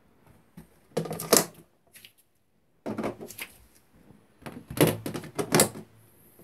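Clattering handling noises in three bursts, about a second in, around three seconds and from about four and a half to six seconds: plastic containers being moved and knocked about.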